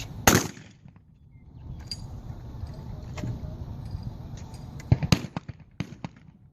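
Shotgun shots on a trap range: one loud bang about a third of a second in, then two more sharp bangs close together about five seconds in, with a few fainter cracks just after.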